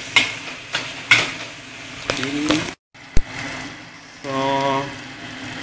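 Metal spatula scraping and stirring in a wok, with a sharp stroke about once a second over the sizzle of a chilli and ginger paste frying in oil. The sound cuts out abruptly about halfway through, then a sharp click and a short steady hum follow.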